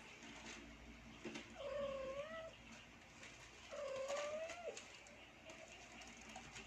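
A kitten mewing: two long, drawn-out meows about two seconds apart, each holding a fairly level pitch.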